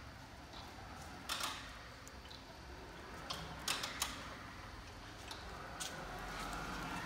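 Still Wagner EGV 12 electric pallet stacker being operated at walking pace: a few sharp clicks and clunks, the loudest about a second in, over a low hum, with a faint electric whine rising near the end as it moves off.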